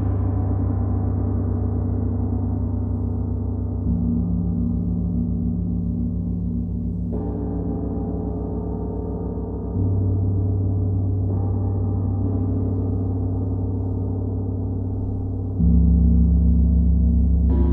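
A gong struck softly again and again, its deep hum ringing on without a break. About every two to four seconds a new stroke adds either a low swell or a brighter shimmer on top, about seven strokes in all.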